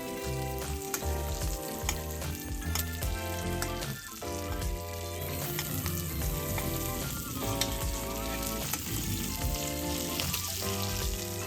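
Food frying in a hot pan: a steady sizzle with scattered sharp pops, under background music.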